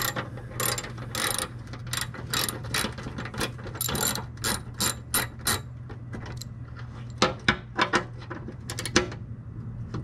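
Hand ratchet with a half-inch deep socket clicking in repeated short strokes as it undoes an underbody plate bolt, with a few sharper clicks near the end.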